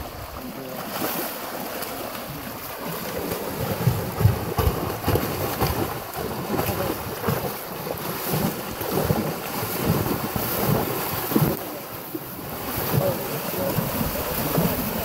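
Wind buffeting the microphone over the wash of sea water around a boat, with irregular low rumbling gusts.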